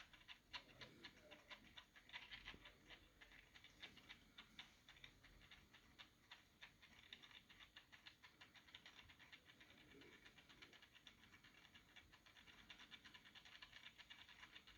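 Near silence with faint, irregular small clicks and scratches from cardboard boxes and vinyl figures being handled.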